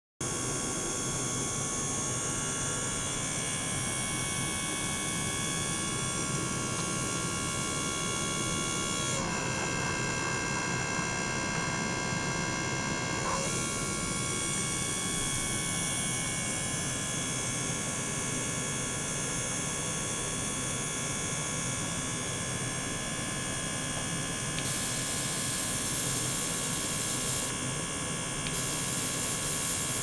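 Small gear pump's electric motor running steadily, a hum with several fixed whining tones as it circulates water through the tubing. For about four seconds, starting some nine seconds in, the tones shift and the high hiss drops away. Near the end a bright hiss comes in twice.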